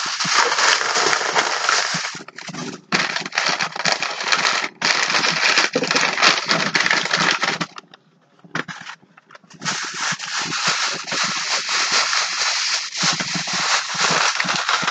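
Thin plastic bag crinkling and rustling close to the microphone as it is pulled and unwrapped from an item, with a short pause about eight seconds in.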